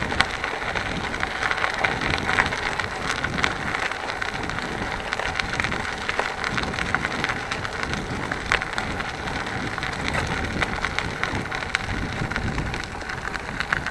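Bicycle ride along a narrow, overgrown path: a steady crackling, rustling noise from the tyres on the rough surface and the overhanging vegetation, with many small clicks.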